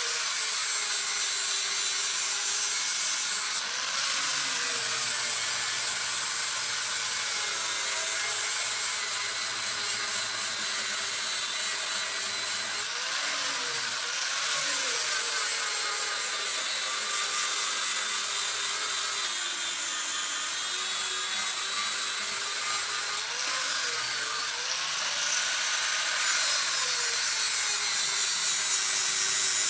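Power grinder grinding the steel of a leaf-spring knife blade, a continuous gritty grinding with a whine that dips and rises again and again.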